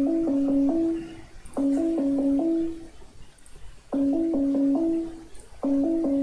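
Google Hangouts video call ringing tone: a short jingle of several quick notes, played four times with short pauses between.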